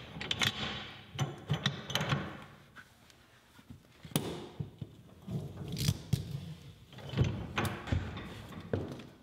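Irregular metal clinks, rattles and knocks of a manure spreader's steel feed chain being handled and reconnected, with knocks on the spreader's wooden floor.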